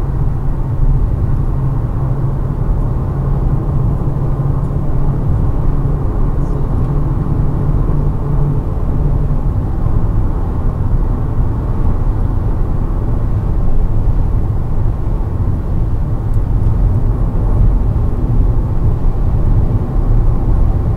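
Steady low drone of tyre, wind and engine noise inside a car's cabin, cruising at highway speed of about 125 to 147 km/h.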